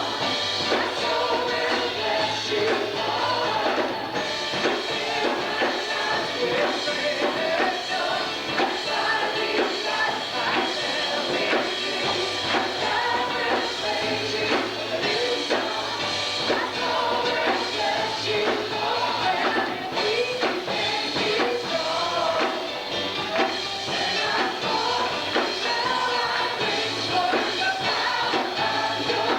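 Live church worship music: voices singing together over a band with a steady drum beat.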